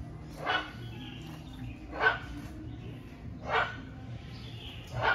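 An animal calling four times, each a short, loud call, evenly spaced about a second and a half apart.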